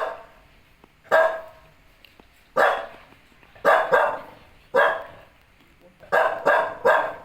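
A dog barking repeatedly: about nine short barks at uneven intervals, some in quick pairs.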